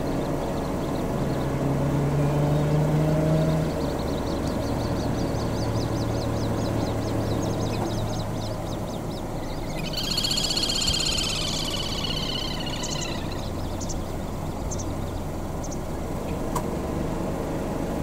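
A little grebe gives a high, rapid trill lasting about three seconds, starting about ten seconds in, after a fainter trill a few seconds earlier. A steady low engine hum runs underneath.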